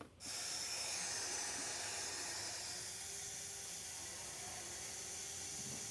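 5-axis CNC router running in its enclosure: a steady hiss with a faint high whine, starting abruptly and holding even.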